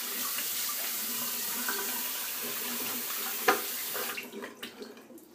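Bathroom sink tap running steadily, with one sharp knock about three and a half seconds in; the water is shut off a moment later, leaving a few small drips and clicks.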